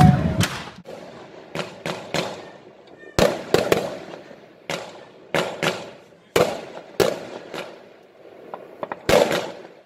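Aerial firework shells bursting in the sky: a string of about fifteen sharp bangs, sometimes two or three close together, each dying away quickly, until the sound cuts off suddenly near the end.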